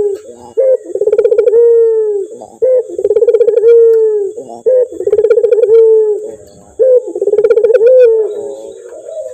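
Male puter (Barbary dove) cooing: four phrases about two seconds apart, each a short note followed by a long rolling coo that slides down at its end.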